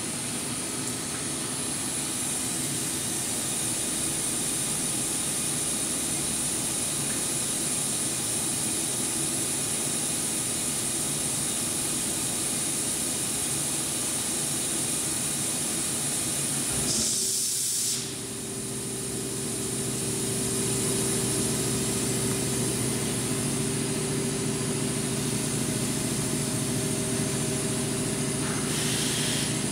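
Kitamura Mycenter 2X vertical machining center running with its spindle turning: a steady mechanical hiss with a high whine. About seventeen seconds in there is a brief louder rush, the sound drops for a moment, and then a different steady hum settles in.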